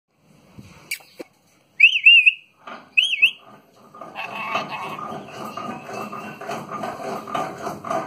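Indian ringneck parakeet giving two short warbling whistles, about two and three seconds in, each wavering up and down in pitch.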